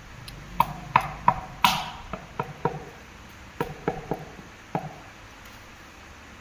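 A mallet tapping a large wall tile to bed it into wet mortar, about eleven short knocks with a brief ring, in two groups: a quick run in the first three seconds, then a few more near the end.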